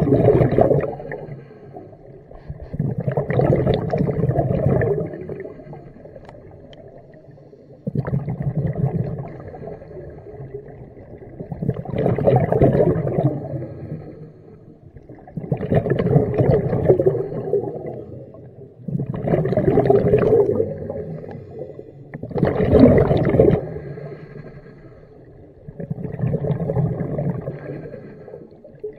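A diver's breathing heard underwater: exhaled air bubbling and gurgling out in regular bursts about every three to four seconds, eight times, with a low rumble between breaths.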